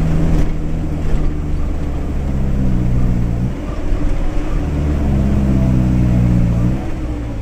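Truck engine heard from inside the cab while driving. Its note rises and then drops sharply about three and a half seconds in, holds steady, and drops again near the end.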